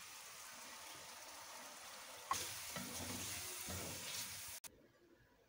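Chopped tomatoes and green chillies sizzling in hot oil in a pan as a wooden spatula stirs them. The sizzle gets louder a little over two seconds in, with scraping from the stirring, then stops suddenly near the end.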